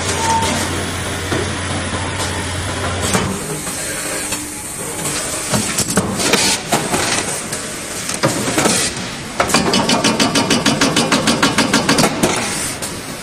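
Automatic block-bottom paper bag filling and packing machine running: a steady low hum at first, then clicks and knocks from its mechanisms. About three-quarters of the way in it turns to a fast, regular clatter of about six beats a second.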